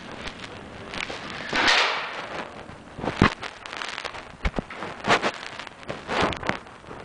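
Scattered airsoft gunfire: a handful of sharp, separate pops at irregular intervals, after a brief rushing noise about two seconds in.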